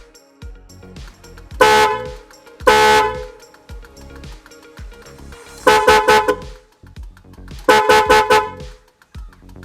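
Volkswagen Polo car horns fitted to a Maruti Zen, sounding in loud two-tone blasts: two short honks in the first three seconds, then two longer bursts chopped into rapid pulses by the newly wired melody maker, about halfway through and again a couple of seconds later. Background music with a steady beat runs underneath.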